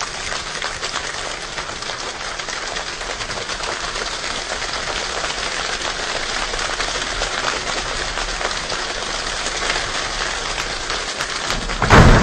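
Rain-like sound effect made without instruments: a steady hiss of fine crackles and patters that slowly grows louder, then breaks into a sudden loud blast near the end.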